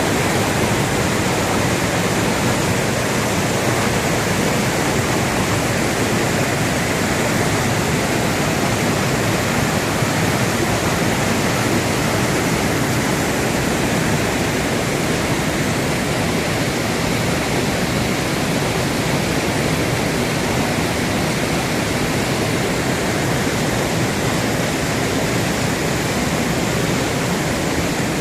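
A waterfall in flood after heavy rain, a large volume of water pouring down in a loud, steady rush.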